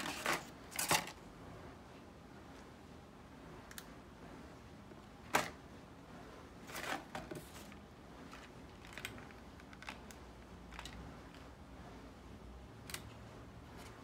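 Scattered clicks and crinkles of a clear plastic packaging tray and a cardboard box being handled as accessory cables are taken out, with the sharpest click about five seconds in.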